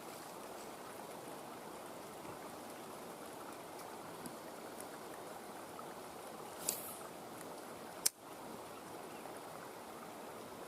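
Creek water running steadily over rapids. A brief hiss comes about two-thirds of the way in, and a single sharp click follows just after it.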